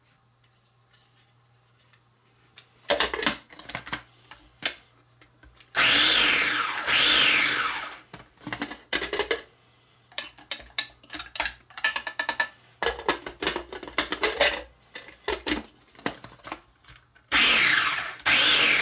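Small electric food processor pulsing tomato and jalapeno salsa in two short bursts, then clicks of the plastic lid and a wooden spoon scraping the bowl, and another pulse near the end.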